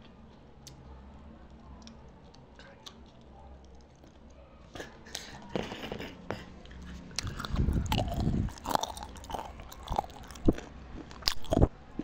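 A person chewing and biting biryani close to the microphone, with wet mouth clicks and smacks. It is quiet for the first few seconds, then the chewing starts about five seconds in and is loudest in the second half.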